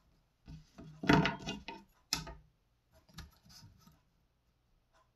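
Small knife being handled and set on the metal blade table of an Edge Pro sharpening system: a scrape and clatter about a second in, a sharp click a second later, then a few lighter taps.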